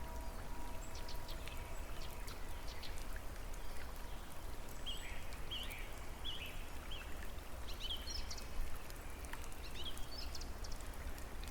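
Steady water noise with scattered drips and patter, as of rain or running water, with small birds chirping in short repeated calls through the middle.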